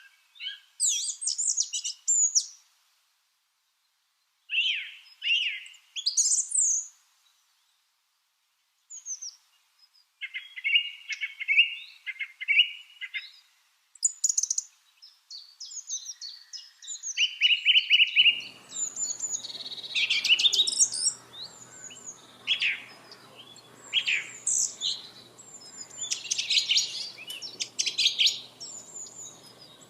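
Lovebirds chirping in quick runs of short, sharp, high calls, broken by two brief silent gaps. About two-thirds of the way through, a faint hum and background hiss come in under denser, busier chirping.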